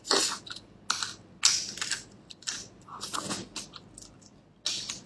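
Close-miked chewing of saucy braised lamb ribs: irregular wet smacks and crackling clicks, a few each second.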